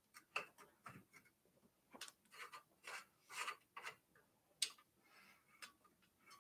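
Faint, irregular metallic clicks and scrapes of the e-bike's front axle nuts being threaded on and turned with a small wrench.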